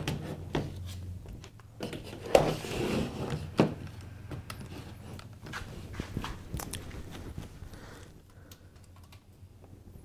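Clicks and knocks of a netbook being opened and handled, loudest in the first four seconds, then fainter scattered clicks.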